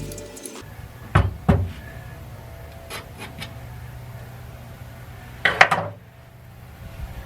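Tools knocking and clattering: two sharp knocks a little after a second in, a few light ticks, then a louder cluster of knocks about five and a half seconds in, over a low steady hum.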